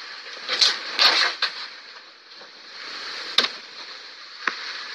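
A few short, scattered knocks and clicks over a steady background hiss, the sharpest about three and a half seconds in.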